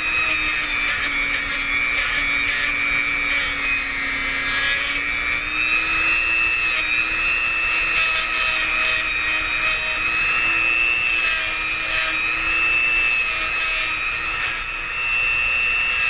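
Dremel rotary tool with a sandpaper drum running at high speed in a steady high whine, sanding and smoothing a steel lock pick cut from drain snake. Its pitch rises a little about five seconds in.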